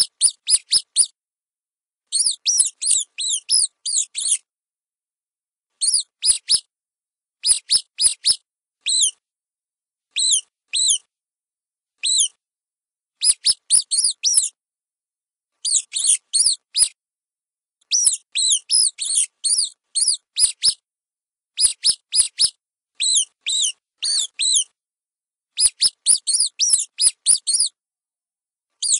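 Small rodent squeaking: short, high-pitched squeaks in quick runs of several at a time, with brief pauses between runs.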